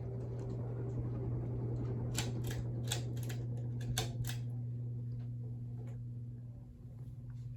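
Sears/Emerson ceiling fan's Emerson motor running on high speed with a steady low hum. Several sharp clicks come about two to four and a half seconds in.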